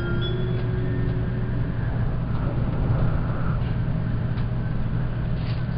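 Steady running noise inside a Tokaido Shinkansen car: a low rumble and hum from the moving train. The last notes of the arrival chime die away just at the start.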